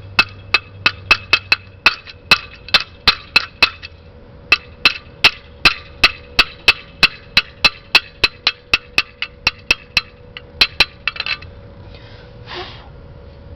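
Chipping hammer rapping slag off a freshly laid stainless-steel stick weld: quick, sharp metal-on-metal strikes with a bright ring, about three a second, stopping about eleven seconds in. A faint steady hum runs underneath.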